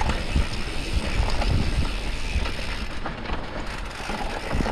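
Mountain bike descending a dirt singletrack: tyres rolling over loose dirt and the bike rattling and knocking over bumps, with wind rushing on the microphone.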